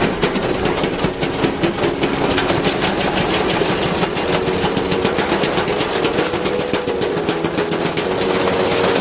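Front-loading washing machine run to destruction, its drum clattering in a rapid, continuous run of knocks, with a steady motor whine that comes in about four seconds in.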